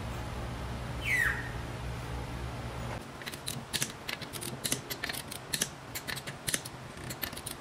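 A low steady hum with a short falling squeak about a second in, which stops at about three seconds. Then a wrench on the wheel bolts gives quick, irregular ratcheting clicks as the bolts are run down before torquing.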